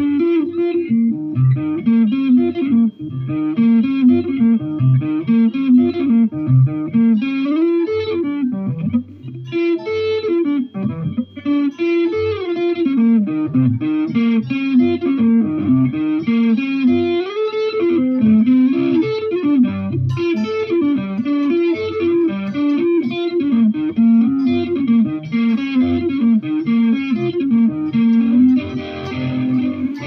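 Guitar played solo: a continuous run of quickly changing picked notes.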